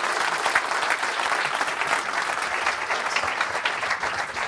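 Audience applauding in a lecture hall: many hands clapping in a steady patter that thins out near the end.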